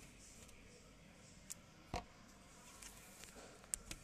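Faint handling of a pair of Ray-Ban RB 2192 Roundabout sunglasses: a few light clicks and taps of the frame, the loudest about halfway through and two quick ones near the end.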